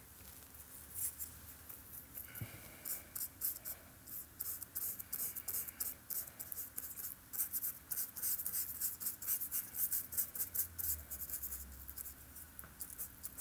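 Paintbrush scrubbing and dabbing paint onto a small painting in quick, short scratchy strokes, busiest through the middle of the stretch.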